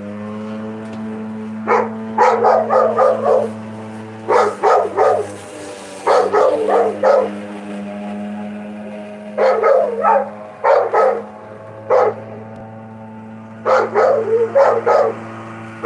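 An electric lawnmower's motor hums steadily at one pitch. Over it a dog barks in repeated short volleys of several barks each, and the barks are the loudest sound.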